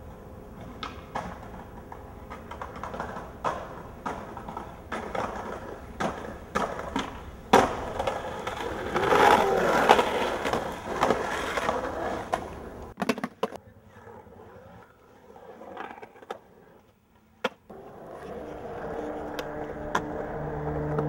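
Skateboard wheels rolling on concrete, broken by sharp clacks of the board popping and landing, with a louder scrape lasting a few seconds about halfway through. After a quieter stretch with a few more clacks, music starts near the end.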